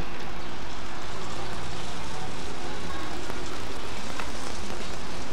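Steady background hiss with a low hum underneath, holding at one level with no distinct events.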